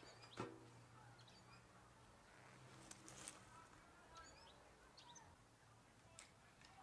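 Near silence with faint, scattered bird chirps. A single light knock comes just under half a second in, as a metal plate is set against the target.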